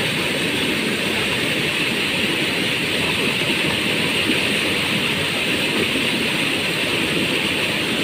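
Small waterfall of river water pouring over rocks: a loud, steady rush of water.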